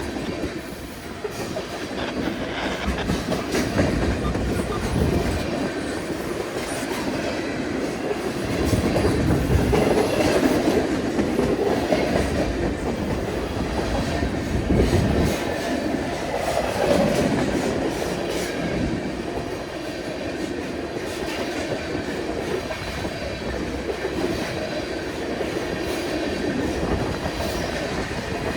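CN freight train M301's cars rolling past, with continuous steel wheel and rail noise that swells and eases slightly as the cars go by.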